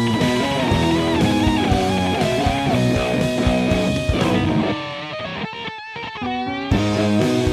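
Rock song with electric guitar over a steady beat. About four seconds in the beat drops out and the music turns quieter and muffled, with wavering held notes. The full band comes back with a hit near the end.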